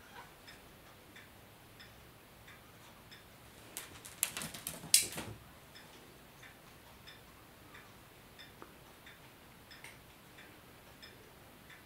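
Clock ticking steadily, a little under two ticks a second. About four seconds in, a brief burst of sharp clattering and rustling, the loudest sound, lasting about a second and a half.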